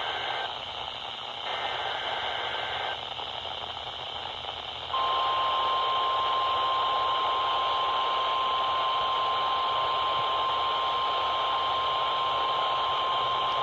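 Weather radio receiver picking up a NOAA Weather Radio Required Weekly Test through static hiss: short bursts of digital alert-header data in the first few seconds, then the steady single-pitch weather radio alert tone starting about five seconds in and continuing.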